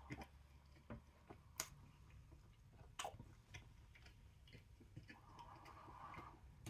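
Quiet, close-up chewing of a soft bite of pita with chicken and garlic sauce: scattered wet mouth clicks and smacks, and a short soft hiss near the end.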